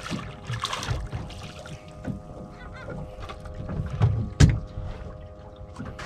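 A red grouper splashing at the surface beside a boat as it is lifted aboard, with a sharp loud thump about four seconds in. A faint steady hum runs underneath.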